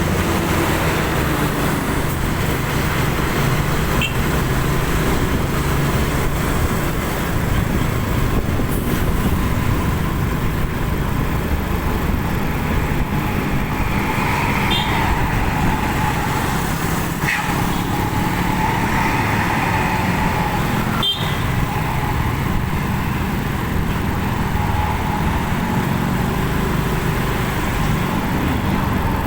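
Steady road-vehicle noise: a continuous low engine rumble with road and tyre noise from vehicles on the move.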